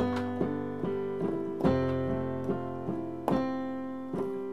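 Sampled grand piano played from a MIDI keyboard: simple chords struck one after another, each left to ring and slowly fade before the next.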